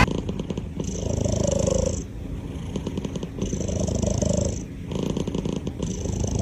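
Domestic cat purring, the purr swelling and easing in a steady cycle with its breaths, about every second and a half.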